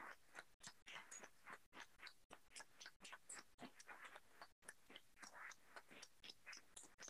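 Faint, scattered applause from a few people clapping: irregular claps several times a second, with a few brief cut-outs in the sound.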